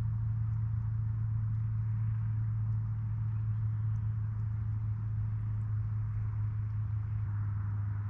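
An engine running at a steady speed: a constant low hum with an even rushing noise over it.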